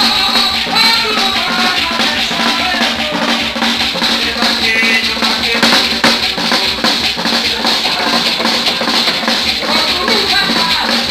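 Live Terecô ritual music: drums and shaken maracas keep up a steady beat while a voice sings over them, amplified through a microphone.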